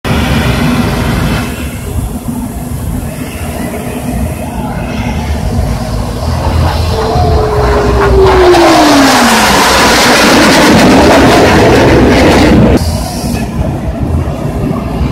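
Fighter jet flying past overhead: a steady jet-engine roar that builds to its loudest in the second half, with an engine tone falling in pitch as the jet passes. The noise drops off suddenly about three-quarters of the way through.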